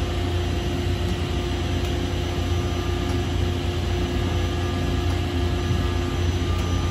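Vacuum pumps of a vacuum-forming thermoformer running steadily: a constant low hum with a few faint steady tones above it.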